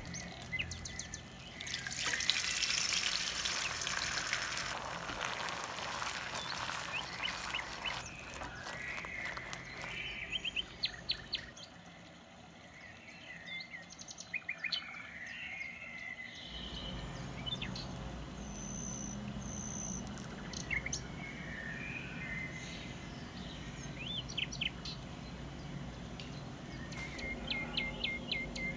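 Butter sizzling and foaming in a nonstick pan, an even hiss for the first several seconds. Birds chirp in the background throughout.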